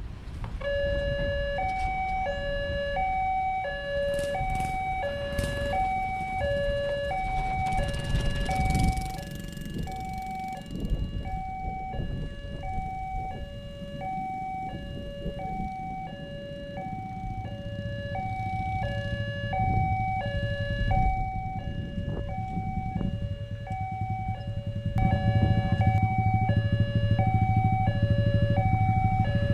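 Railway level-crossing warning bell sounding an electronic two-tone ding-dong, low and high notes alternating about twice a second as the crossing barrier comes down. A low rumble builds over the second half and grows louder near the end as a train approaches.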